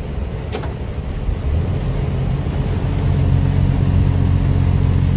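Mercedes Actros truck's diesel engine heard inside the cab over steady tyre and road hiss on a wet motorway. About a second and a half in, the engine's low drone comes up and grows louder and steadier. There is a brief click about half a second in.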